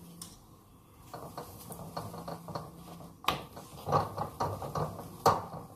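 Steel spoon scraping and clicking against an iron tawa as a paratha is pressed and roasted on it, with a few sharper knocks in the second half.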